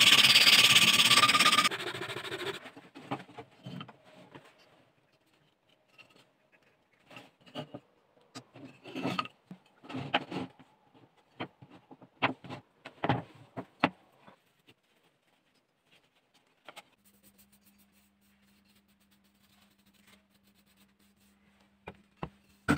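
Wood rasp scraping along a carved elm saw handle, loud for about two seconds and then fading. Scattered knocks and scrapes of wooden parts follow, and a faint steady hum comes in near the end.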